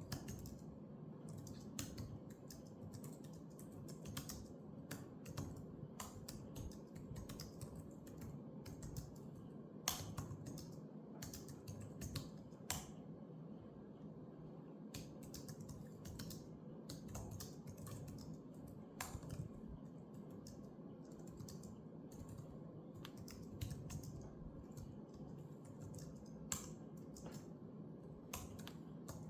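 Typing on a computer keyboard: a run of irregular key clicks over a steady low background hum.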